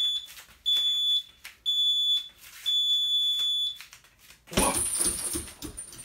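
Electronic round timer beeping at a high pitch: three short beeps and a longer fourth, the countdown signal that a boxing round is starting. About a second after the last beep a loud, noisy sound comes in.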